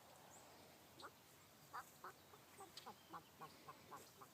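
Domestic fowl calling faintly: a quick run of about a dozen short calls, roughly three a second, starting about a second in.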